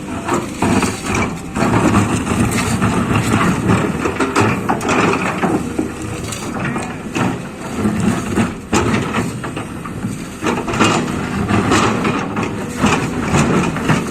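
Liugong 920D excavator's diesel engine running, with irregular knocks and clanks throughout.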